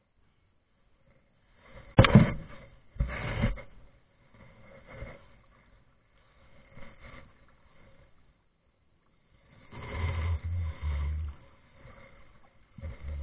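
Kayak paddle strokes in calm water: irregular splashes and drips as the blades dip and lift, every second or few, with the sharpest, loudest one about two seconds in and a longer, rumbly one about ten seconds in.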